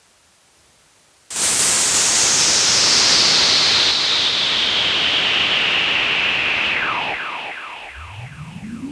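Roland AIRA Compact S-1 synthesizer playing a noise sound: a loud hiss cuts in about a second in, its filter sweeping slowly downward. Near the end it breaks into a string of quick falling zaps, about three a second, and a pitched tone starts sweeping upward.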